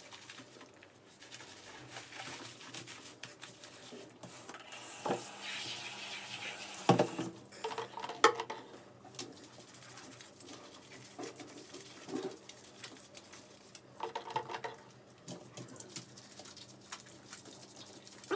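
Hands rubbing and squeezing lather through a wet Westie's coat, a soft wet patter and squelch with scattered small knocks. There is a brief hiss of spray about five seconds in.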